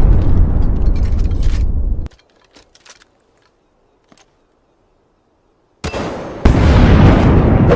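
Loud rumbling blast of noise that cuts off suddenly about two seconds in, then near silence with a few faint clicks, then a second loud rumbling blast that starts near the end and jumps louder a moment later.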